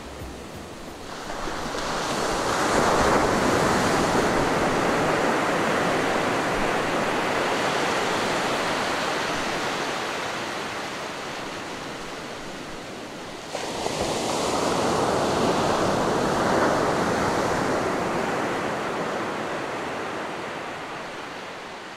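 Ocean surf washing onto a sandy beach: one wave builds about a second in and slowly fades, then a second breaks suddenly a little past halfway and fades away.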